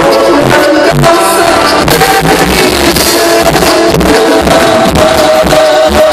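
Live band music: a man singing into a microphone over drums and keyboard, with a steady beat.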